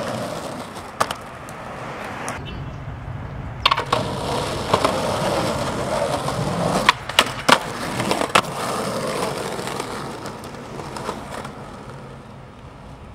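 Skateboard wheels rolling on concrete and asphalt, with sharp clacks of the board hitting the ground about a second in, near four and five seconds, a quick cluster of three around seven seconds, and again past eight seconds.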